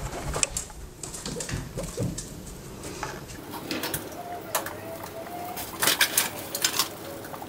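A skinny pig (hairless guinea pig) eating hay: repeated crisp crunches and crackles of dry hay stalks as it pulls and chews them.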